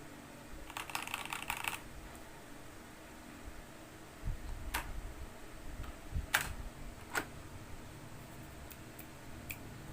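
Keystrokes on a Next Time 75 mechanical keyboard with lubed Akko Lavender switches: a quick burst of typing about a second in, then single key presses every second or so.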